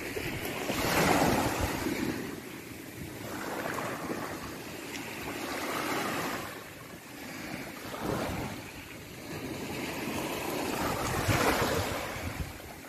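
Small sea waves breaking and washing up a pebbly shore, surging about four times, loudest about a second in and near the end. Wind buffets the microphone underneath.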